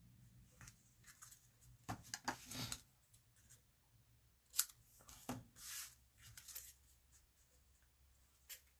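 Small craft scissors cutting a strip of patterned card paper: several short, quiet snips mixed with brief rustles of the paper being handled.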